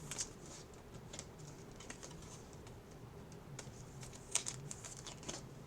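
Faint, irregular light clicks and flicks of trading cards being handled and sorted, with a few sharper clicks near the end.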